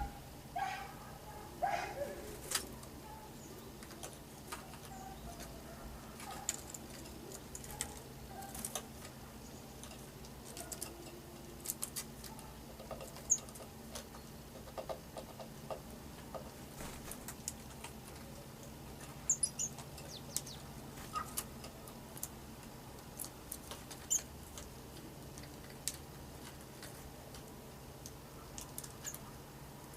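Small birds at close range: scattered pecking clicks and scratches, with a few brief, high chirps, over a steady low hum.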